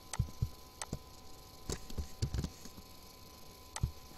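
Irregular clicks of a computer keyboard and mouse, about eight in all, some with a soft low thump, over a faint steady electrical hum.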